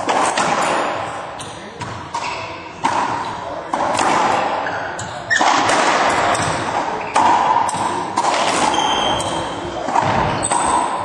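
Racquetball rally: the hollow rubber ball cracks off racquets and the court walls about ten times, each hit ringing in the court's echo.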